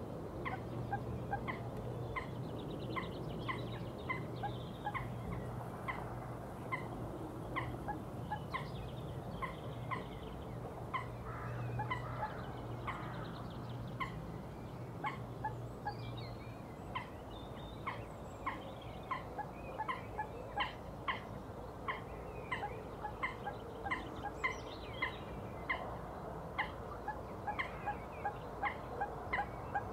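A bird calling in a long run of short, evenly repeated notes, about two a second. A steady low hum is underneath until about halfway through.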